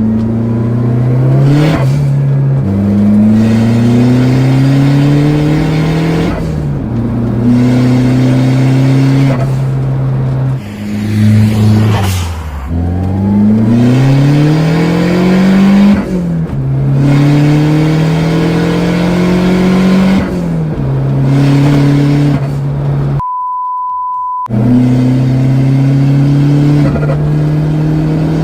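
Fiat Uno Turbo i.e.'s 1.3-litre turbocharged four-cylinder engine accelerating hard, its pitch climbing in each gear and dropping suddenly at each upshift, with a fall-off and fresh climb about twelve seconds in. A short steady beep replaces the engine sound for about a second near the end.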